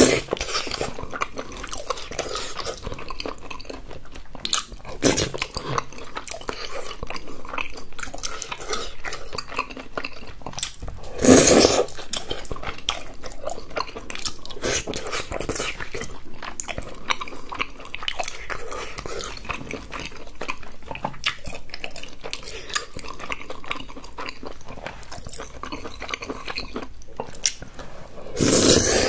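Wet chewing and mouth sounds from eating saucy tteokbokki rice cakes, with chopsticks clicking against the glass baking dish. Two louder bursts of eating noise, one about eleven seconds in and one near the end.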